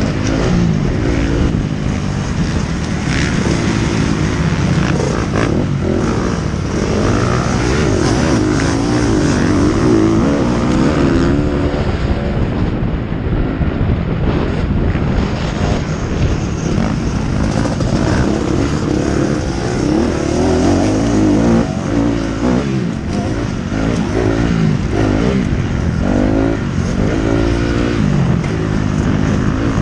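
Motocross bike engine ridden hard, heard close up from the rider's helmet: repeatedly revving up through the gears and dropping back between bends.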